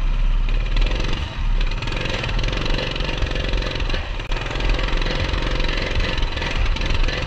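Coleman CT200U mini bike's small single-cylinder engine running steadily under load, its exhaust firing pulses packed close together. The bike is struggling with a new clutch that the rider thinks he has burnt up.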